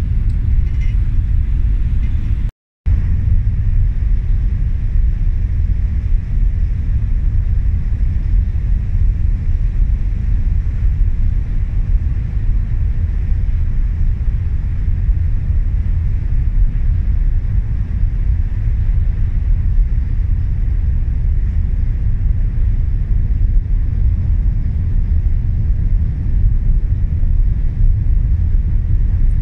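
Steady low rumble on the open deck of a cruise ferry under way, with a brief moment of silence about two and a half seconds in.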